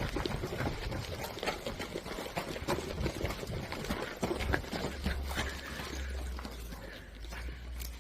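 Irregular rustling and crunching, like a player moving quickly through brush and undergrowth, with a low steady rumble joining about halfway through.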